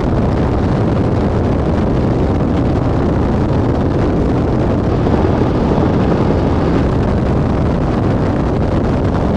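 Single-engine light airplane's piston engine and propeller running steadily, heard from inside the cockpit as a loud, even drone.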